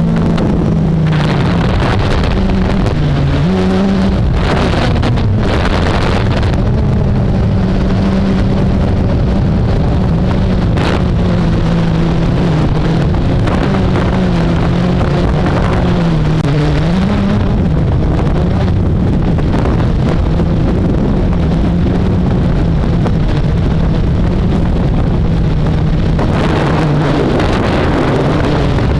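Blade 350QX quadcopter's electric motors and propellers humming steadily, the pitch wavering up and down as the motors work against gusts, over heavy wind rumble on the microphone.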